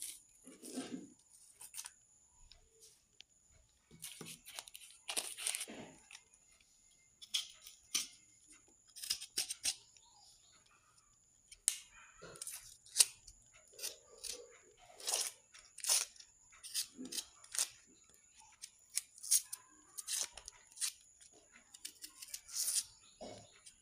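A knife scraping and tearing the dry, papery skin off a red onion: a run of short, irregular crackling scrapes, starting about four seconds in.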